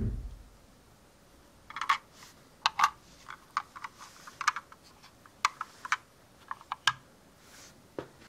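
Small sharp clicks and taps, irregular and a dozen or more over a few seconds, from a diecast model van being handled in gloved fingers; a low thump right at the start.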